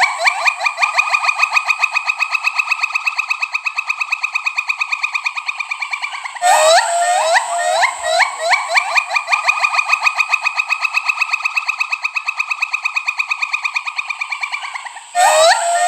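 Pileated gibbon calling: a few rising whoops that quicken into a long, rapid bubbling trill which climbs and then eases in pitch. The sequence starts over about six seconds in and again near the end.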